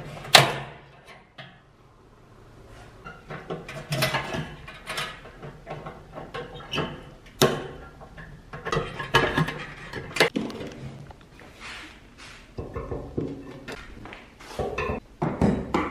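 Pliers and metal parts clicking, scraping and clattering against the sheet-metal base of a large rice cooker while its wiring is being connected. There are irregular knocks throughout, with the sharpest click about half a second in.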